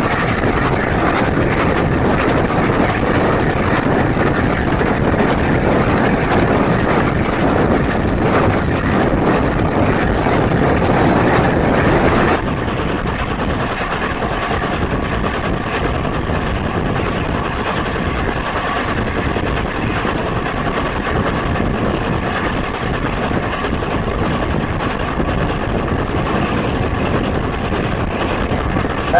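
Steady rush of wind and running noise from a moving train close behind class A4 steam locomotive 60007, with no distinct exhaust beat or whistle. The level drops a little about 12 seconds in.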